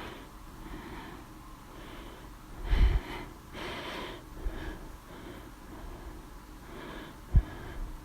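A person with hiccups breathing audibly between spasms, with a sharp, gasping hiccup about three seconds in and a shorter one near the end.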